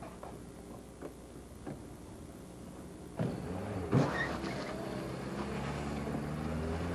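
Car engine running while the car slides and turns on loose dirt. The sound grows louder about three seconds in, with a sharp noise near four seconds, then settles into a steady engine hum.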